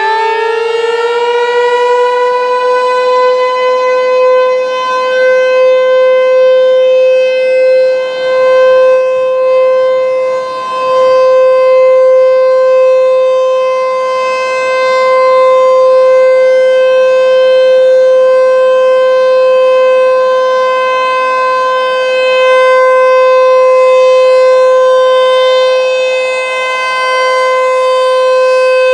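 ASC T-128 outdoor tornado warning siren sounding its steady alert signal: it finishes winding up to full pitch right at the start, then holds one loud, steady tone with slight swells and dips in loudness.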